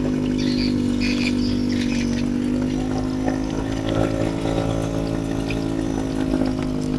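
Small boat engine idling steadily: an even, low mechanical hum, with a few light clicks and rustles from handling gear over it.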